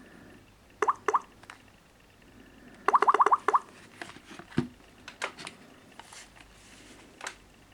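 Smartphone alert tone: runs of quick electronic blips, two short runs about a second in and a rapid run of about seven near three seconds, followed by scattered light clicks.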